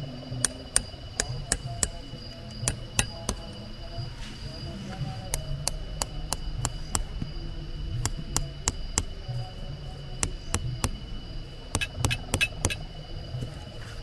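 Hammer driving a stake into the ground: sharp taps, about three a second, in several runs with short pauses between them.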